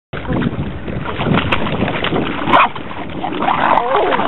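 A dog whining in rising and falling glides, strongest near the end, over wind noise on the microphone.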